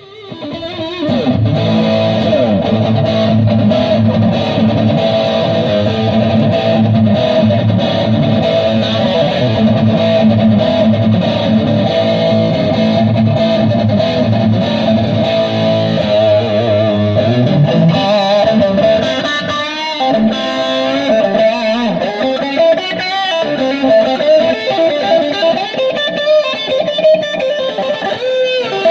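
Ruckus RS Tribute electric guitar playing a rock riff through a Headrush amp-modelling pedalboard. It plays thick low chords for the first half or so, then from about seventeen seconds in it moves to single-note lead lines with bent notes.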